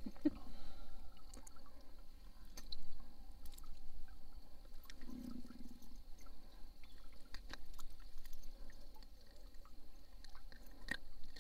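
Scattered light clicks and taps of fishing tackle being handled in a small aluminum boat while a caught pickerel is unhooked, over a low steady rumble.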